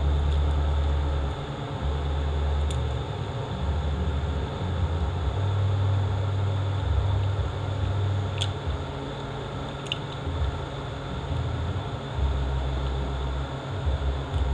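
Steady low hum of background machinery, changing a little in pitch, with a few light clicks of small metal transmission parts being handled.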